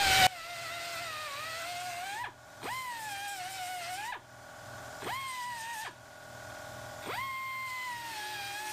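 Pneumatic air hammer cutting into a car's rear quarter panel sheet metal, run in four bursts with short gaps between. Each burst rises in pitch as the trigger is squeezed, then settles into a steady, slightly sagging whine and stops sharply. A short loud burst comes right at the start.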